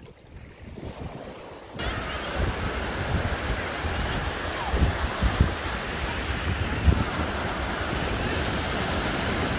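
Surf breaking and washing up a shallow sandy beach, a steady rushing noise that turns abruptly louder about two seconds in. Wind buffets the microphone with low thumps.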